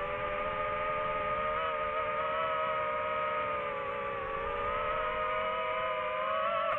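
DJI FPV drone's motors and propellers whining steadily. The pitch dips slightly about four seconds in and rises again near the end.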